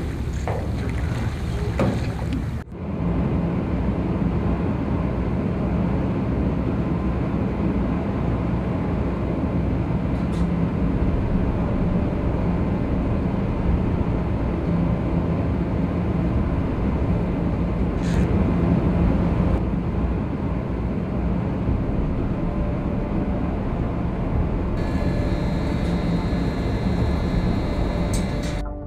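Steady low drone of a moored ship's engines running, with a hum held at one pitch. About three seconds before the end a thin, higher whine joins in.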